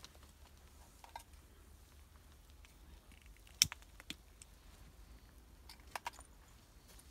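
Quiet outdoor background with a few isolated sharp clicks or snaps, the loudest a little past halfway and two close together near the end.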